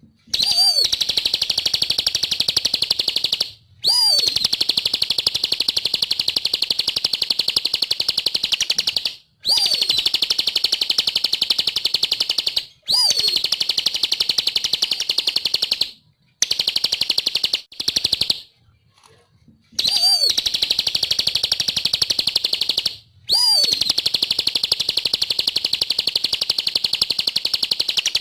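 Bar-winged prinia (ciblek) singing vigorously in bouts of very rapid, high trilling notes. Each bout lasts a few seconds and opens with a short downward-slurred note, with brief pauses between bouts.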